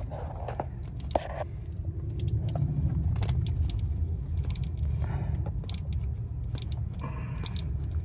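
Ratchet wrench on a long extension clicking in short strokes as a bolt is worked, with sharp metallic clicks coming a few at a time. A steady low hum runs underneath.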